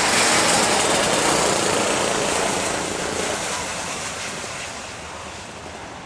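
Jet airliner engines passing close by, a loud rushing roar that fades steadily as the plane moves away.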